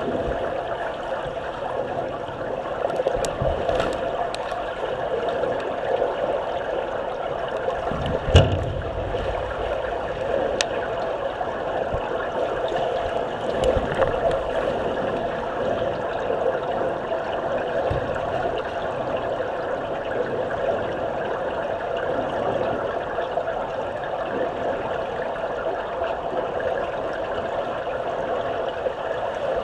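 Swimmers' churning water heard underwater in a pool: a steady muffled rush and bubbling, with one sharp knock about eight seconds in.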